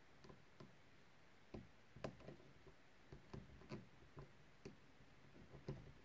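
Faint, irregular clicks and ticks of a hook pick working the pin stack of an all-brass Corbin padlock against tension, a dozen or more, the loudest about two seconds in.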